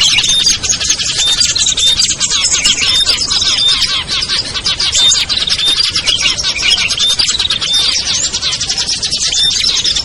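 Dense, continuous chorus of many small songbirds chattering and trilling over one another, with a short high note repeating about once a second; a layered bird-lure recording made to draw wild small birds down.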